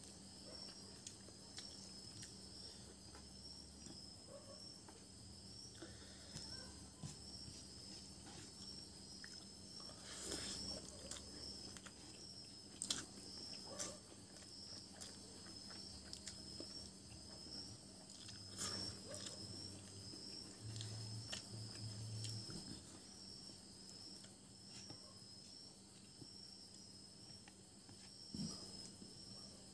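Crickets chirping steadily, a high, evenly pulsing trill, with a few soft clicks and smacks of eating by hand from a plate of rice scattered through it.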